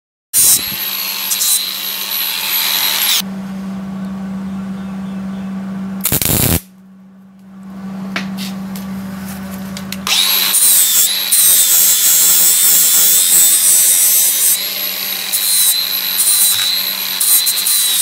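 Electric arc welding steel: a crackling, hissing arc for about three seconds at the start and again for most of the last eight seconds, with a short loud burst about six seconds in, as plug welds are laid on a seat-belt bracket. A steady low hum runs underneath, plainest in the pauses.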